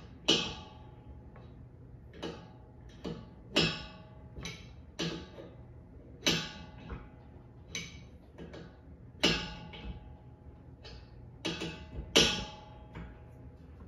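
Ratchet wrench tightening a threaded pipe fitting: an uneven run of short metallic clicks and clanks, about one or two a second, each with a brief metallic ring.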